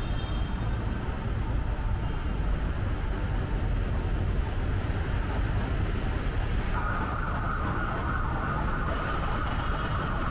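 Outdoor city ambience: a steady rumble of street traffic from below the high-rises. A steady higher hum joins about seven seconds in.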